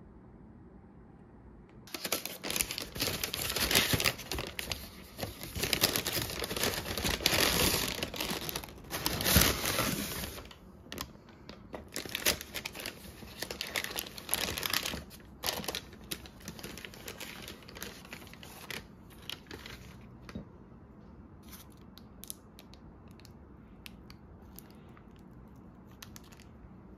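Thin paper pastry wrapping crinkling and rustling as it is handled and opened by hand. The crinkling starts loud about two seconds in and eases off after about ten seconds into lighter, scattered rustles that thin out to a few faint ones near the end.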